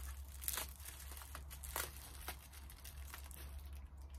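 Blue packaging crinkling and crackling in the hands as a small highlighter compact is unwrapped. The sound is faint, with a few sharper crackles scattered through it.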